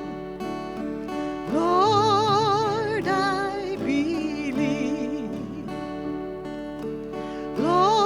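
Slow Christian worship song: long held notes sung with vibrato over sustained instrumental chords.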